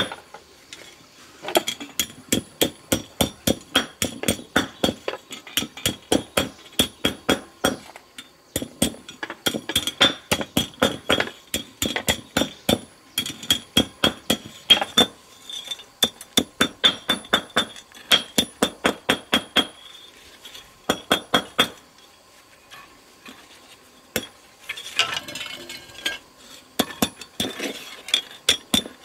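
Claw hammer striking steel wire against a brick, hammering bent wire straight: quick, sharp metallic taps with a slight ring, about three a second, in runs broken by short pauses. A brief scraping sound comes about three-quarters of the way through.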